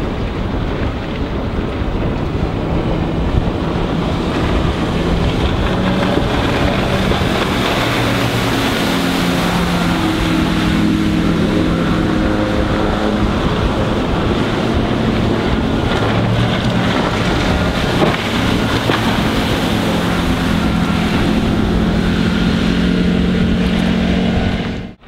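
Four Winns H200 bowrider's Mercruiser 4.3-litre MPI V6 sterndrive running at speed on the water. Its note rises and falls in steps as the boat turns, with wind noise on the microphone over it.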